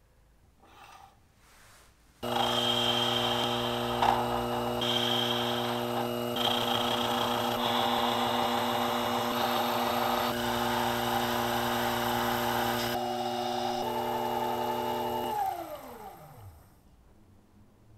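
Small metal lathe running, turning a brass rod with a carbide insert tool: a steady motor hum with a hissing cutting sound over it that shifts as the cut changes. It starts abruptly about two seconds in, and near the end the motor switches off and winds down, its pitch falling away.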